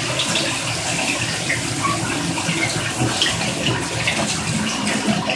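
Water spraying steadily from a DreamSpa LED shower head.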